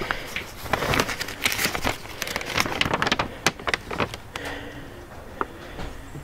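Paper rustling and crinkling as an instruction sheet is handled and leafed through, with scattered small clicks and taps. Dense for the first few seconds, then only a few separate clicks.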